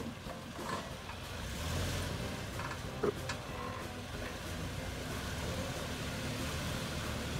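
Lifted Toyota Land Cruiser Prado crawling slowly uphill over a rutted dirt track, its engine running at low revs with a steady low rumble that swells briefly about two seconds in. A single sharp knock about three seconds in.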